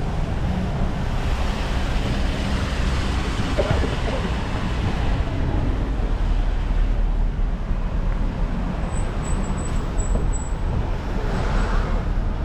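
Road traffic noise: a steady low rumble with vehicles swelling past, once early on and again near the end.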